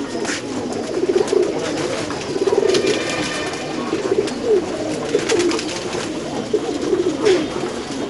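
A flock of domestic pigeons cooing together in overlapping calls, with short flutters of wings now and then as they crowd a feeder.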